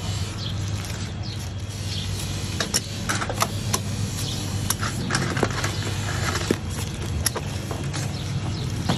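Sharp, scattered clicks of metal barber scissors knocking together and of cardboard being handled as the scissors are packed into a cardboard box and the lid is pressed shut, over a steady low hum.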